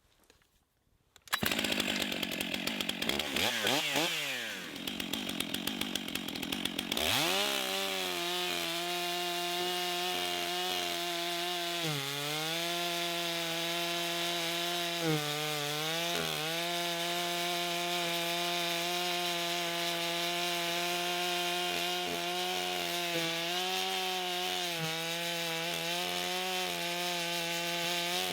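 Stihl 661 chainsaw's 91 cc two-stroke engine cutting straight down through a log with the full bar buried. It comes in after about a second and revs unevenly at first. From about seven seconds it holds a steady full-throttle pitch, dipping briefly a few times as the chain bogs under load.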